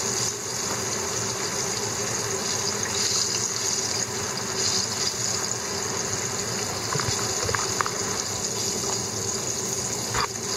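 Floured split horse mackerel deep-frying karaage-style in hot oil in a frying pan: a steady sizzle and bubbling, with a few small pops in the second half.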